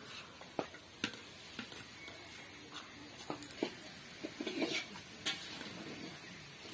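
Eating by hand from a steel plate: scattered sharp clicks and taps of fingers and food against the plate as rice and small-snail curry are mixed and picked up, with softer mouth noises near the middle.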